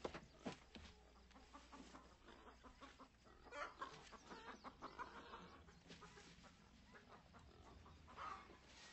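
Hens clucking faintly, with scattered small clicks and rustles.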